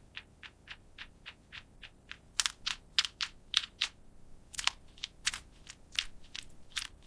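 Typing on a computer keyboard: keystrokes click evenly at about four a second, then from about two and a half seconds in come louder, sharper and less even.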